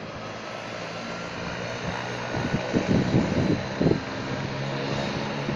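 Military helicopter running on the ground: a steady drone of turbine engine and rotor that grows a little louder after about four seconds. Several dull thumps come between about two and a half and four seconds in.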